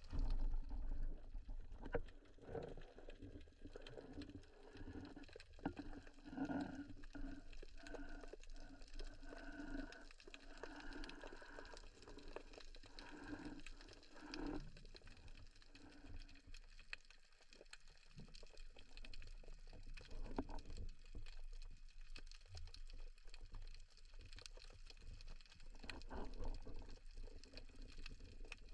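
Faint underwater sound through an action camera's housing: scattered clicks and crackles throughout, with a wavering hum that stops about fifteen seconds in.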